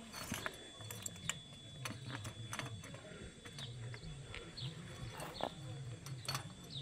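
Scattered light clicks and knocks of stone chips against steel rebar as small stone wedges are pushed under a footing's rebar grid, shimming it up to leave 2 cm of concrete cover. A low hum runs underneath.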